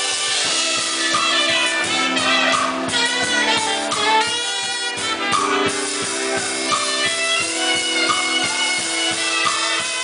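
A live band playing: a horn section of trumpet, saxophone and trombone holding notes over a drum kit keeping a steady beat.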